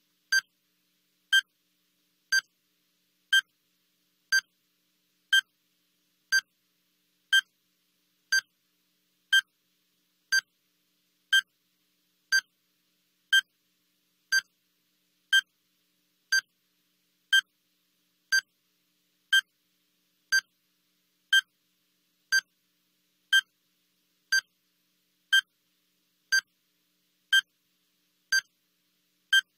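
Countdown timer's short electronic beep, repeating once every second with silence in between.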